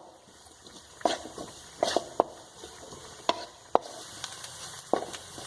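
Sliced onion, ginger, garlic and green chilli with spice powders sizzling in coconut oil in a wok while being stirred, the spatula scraping and clicking against the pan about seven times. The onions are frying to the half-cooked stage.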